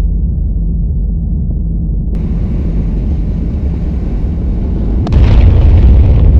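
Film-score sound design: a loud, steady low rumbling drone, joined about two seconds in by a higher hiss, then a sudden boom-like hit about five seconds in that rolls on into a heavier rumble.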